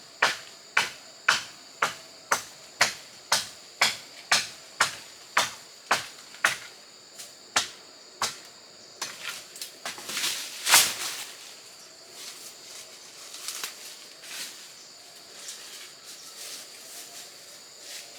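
Hard, evenly spaced strikes of a hand tool, about two a second, that thin out and stop about eight seconds in, followed by a louder rustling burst; crickets or other insects chirr steadily throughout.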